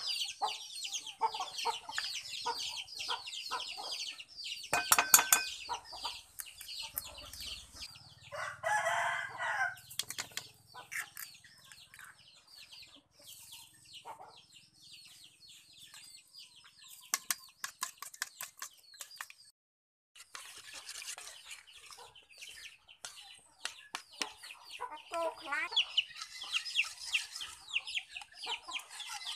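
Chickens clucking with many quick high chirping calls, and a louder call of about two seconds coming about eight seconds in. A burst of sharp clicks sounds about five seconds in.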